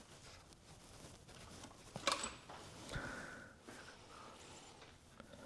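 Faint handling noises from a small-block Ford V8 being taken apart: a sharp knock about two seconds in and a duller one about a second later, with light scraping around them.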